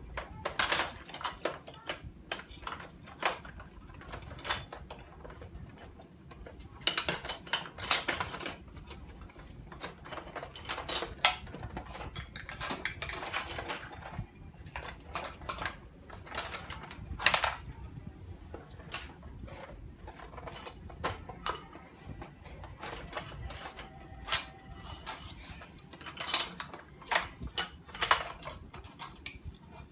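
Irregular clicking and clattering of small clear plastic containers, lids and metal tins being handled, knocked together and set down on a wooden floor by a toddler rummaging in a drawer.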